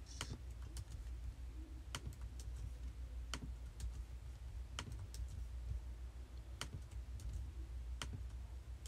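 Scattered keystrokes on a MacBook Air laptop keyboard, single sharp clicks roughly a second or two apart, over a steady low hum.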